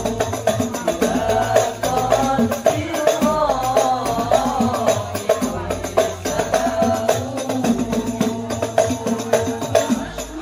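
Banjari hadrah ensemble performing: male voices singing a sholawat through microphones over a steady beat of rebana frame drums.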